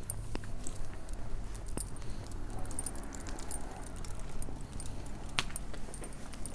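Footsteps on a paved street with small metallic clinks and jingles scattered through, over a steady low rumble.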